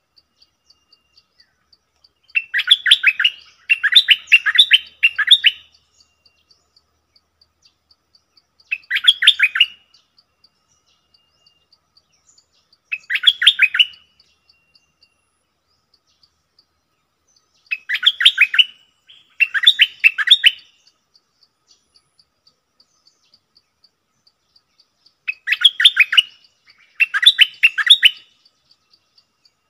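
Caged decoy stripe-throated bulbul singing in short bursts of quick, bubbly notes, about nine bursts in loose pairs a few seconds apart.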